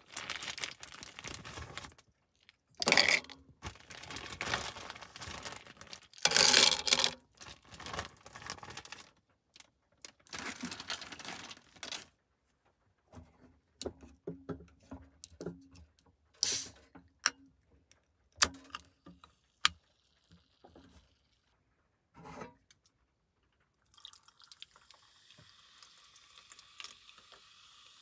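Food-preparation handling sounds: a series of short knocks, rustles and liquid pouring. Near the end a steady frying sizzle sets in.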